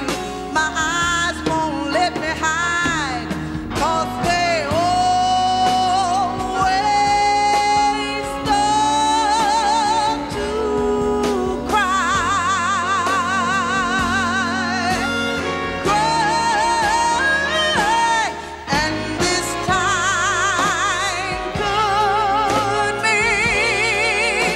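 Female soul singer's lead vocal over band backing, singing long held notes with a wide vibrato.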